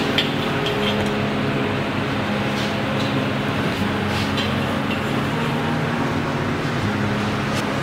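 A steady mechanical roar with a low hum, with a few light metallic clicks as iron hooks scrape and tap flatbreads off the wall of a tandoor oven.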